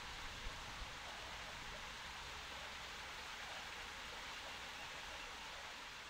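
Small stream trickling and flowing over granite rocks: a steady, faint hiss of running water, with a couple of soft brief bumps in the first second.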